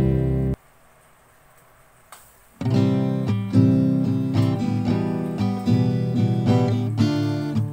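Background music of strummed and plucked acoustic guitar, which drops out for about two seconds shortly after the start and then comes back in.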